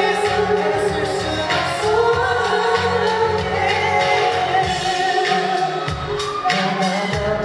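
A male singer singing live into a handheld microphone over pop backing music.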